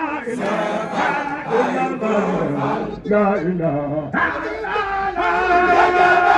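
A large crowd of Baye Fall devotees singing a devotional chant together in unison, mostly men's voices, loud, in sung phrases that restart about once a second.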